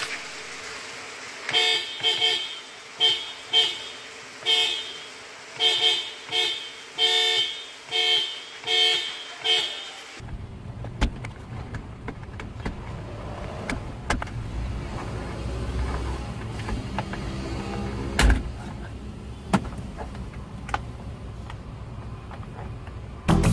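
Mitsubishi Triton's snail horns sounded in about a dozen short honks, some in quick pairs, during the first ten seconds. After that the horn stops and a steady low rumble with scattered clicks and knocks follows.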